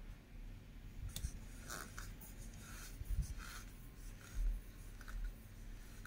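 Mukbang eating and handling sounds: a series of brief, scratchy scrapes and rustles, like a utensil working through food on a plate, with a few soft low thumps.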